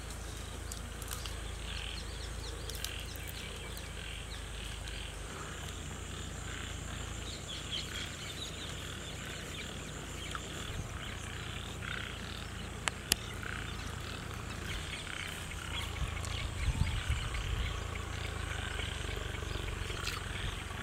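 Outdoor rural ambience: a steady low rumble of wind on the microphone with faint scattered high chirps. The rumble grows louder and more uneven near the end.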